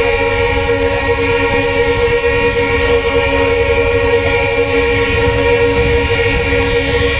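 Train horn held in one long, steady blast over the low rumble of the moving train.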